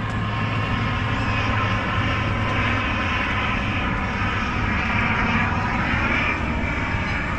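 Steady engine drone of a low-flying airplane as it descends, with a whine that shifts slowly in pitch.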